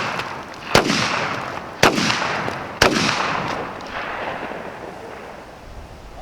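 Remington Versa Max semi-automatic 12-gauge shotgun firing three quick shots about a second apart, each ringing out and fading afterwards; the tail of a shot fired just before is dying away at the start.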